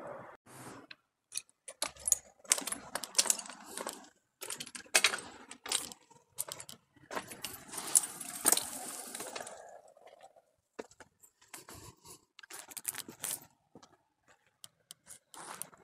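Footsteps crunching on loose gravel and broken rubble, coming in irregular clusters with short pauses between them.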